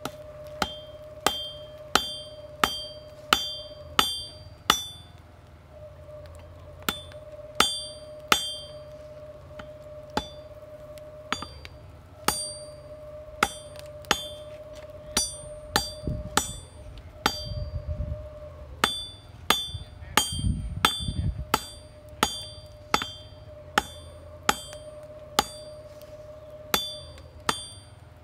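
Blacksmith's hammer striking red-hot folded square stock on an anvil to set a forge weld. There are several dozen blows in runs of a few at a time, each with a bright metallic ring, over a steady hum.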